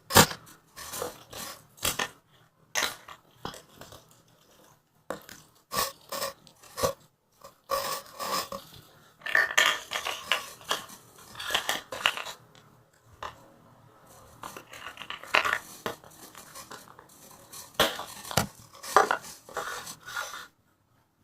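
Hands squeezing and pulling a microwave-softened gel slime toy: irregular short sticky squelches and clicks, with a few longer scratchy rubbing stretches.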